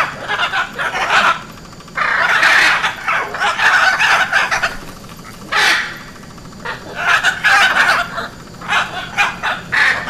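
Hyacinth macaw calls: loud, harsh squawks in repeated bursts with short pauses between them, the longest run starting about two seconds in and lasting over two seconds.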